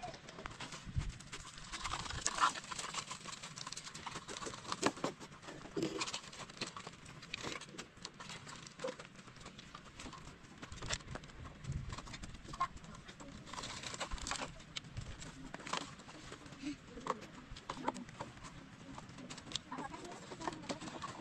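Irregular clacks and knocks of stones being picked up off muddy ground and dropped into small plastic toy wheelbarrows, with a few short bird chirps.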